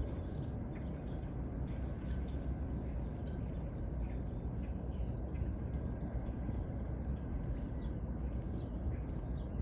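Small birds chirping: short, high, quick chirps that come more often in the second half, over a steady low background rumble.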